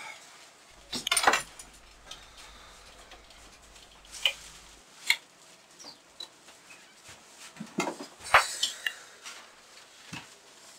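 Scattered clinks and clatters of small hard objects being handled and set down. There are a few sharp knocks about a second in, single clicks near four and five seconds, and the loudest cluster of clatter around eight seconds.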